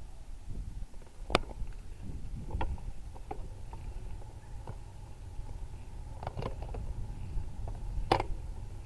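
Ride noise picked up by a handlebar-mounted bicycle camera: a steady low rumble of tyres and wind, with sharp clicks and knocks from the bike and mount, the loudest about a second in and near the end.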